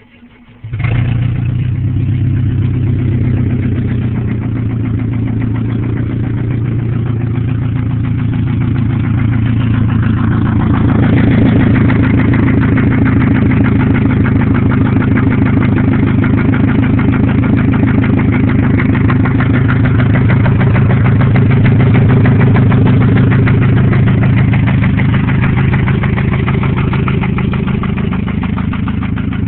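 1997 Pontiac Grand Am SE's 2.4-litre twin-cam four-cylinder engine idling with a rapid ticking, running loud with the exhaust open at the header. The ticking is one the owner suspects comes from a spun bearing, with the oil pressure light coming on below 1000 rpm.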